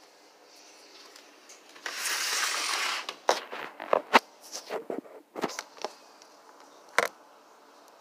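About a second of hiss about two seconds in, followed by a run of short clicks, knocks and rustles as the opened plastic Dr Pepper bottle and the phone are handled.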